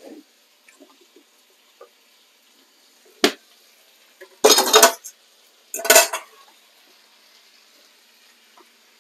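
Metal kitchenware clattering: a sharp clink a little over three seconds in, then two short bursts of clanking about a second apart.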